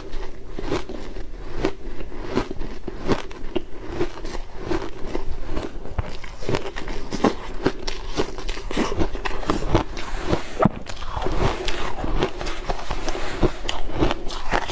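Close-miked biting and chewing of shaved ice: a dense, irregular run of crunches as mouthfuls of the ice break between the teeth.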